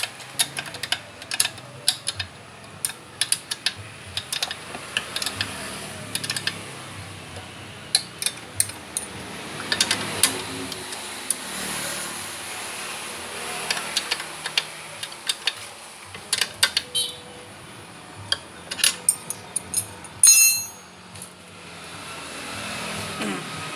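Irregular sharp clicks and knocks of hand work with tools and parts, with a louder clatter about twenty seconds in.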